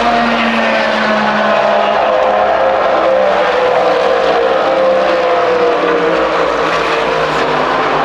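A pack of GT3 race cars running through a corner, their engine notes overlapping steadily, with one note sliding lower in pitch over a few seconds in the middle.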